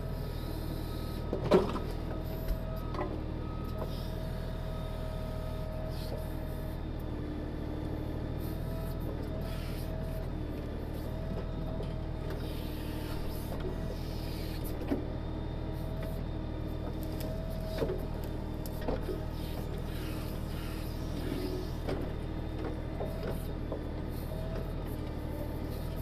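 Diesel engine of a Kioti DK6010SE tractor running steadily while its KB2485 backhoe digs. A hydraulic whine rises and falls as the boom and bucket work under load. A few sharp knocks of the steel bucket against rock and roots come through, the loudest about a second and a half in.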